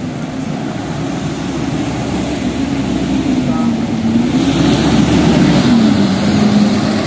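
Double-decker city bus driving past close by: its diesel engine hums with a slowly wavering pitch over street traffic noise. It grows louder as the bus comes alongside, loudest about five to six seconds in.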